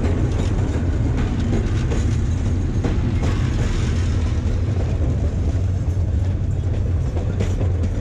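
Metre-gauge passenger train rolling past close by. The diesel locomotive's engine note is heard in the first half second, then gives way to the steady low rumble of the coaches' wheels on the rails, with a few sharp clicks as the wheels cross rail joints.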